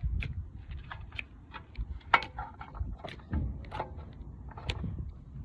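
Handling noise: irregular light clicks and knocks over a low rumble.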